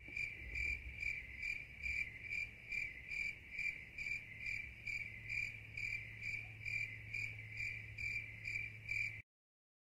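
Steady, even insect-like chirping, about three chirps a second, which cuts off suddenly near the end.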